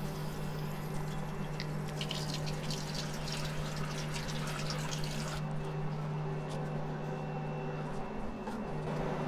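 Induction hob running with a steady low hum under a kettle of freshly mixed beer mash, while foam on the mash surface fizzes and crackles as its bubbles pop for the first five seconds or so, then dies down.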